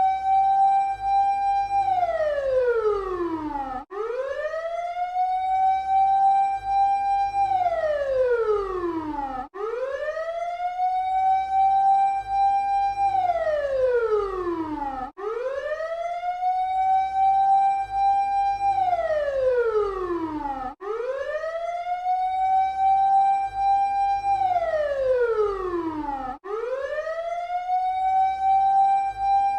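A siren wailing in even, repeating cycles. Each cycle rises quickly, holds a high note for about two seconds, slides down over about two seconds, then cuts off and starts again, roughly every five and a half seconds.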